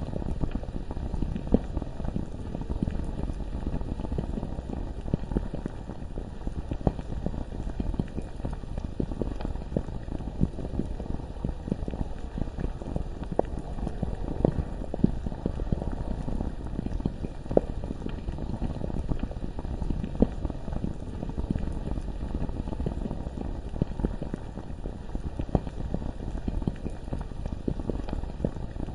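Thick molten lava bubbling: a steady, dense stream of low pops.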